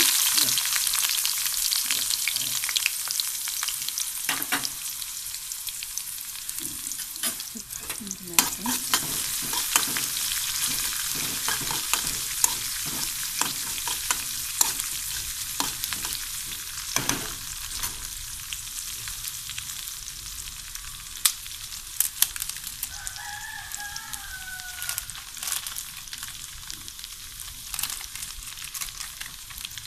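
Sliced shallots and mustard seeds frying in hot coconut oil in an aluminium kadai, the tempering for sambar: a steady sizzle with frequent sharp clicks as a steel spoon stirs them. The sizzle is loudest as the onions first hit the oil and slowly eases as they cook.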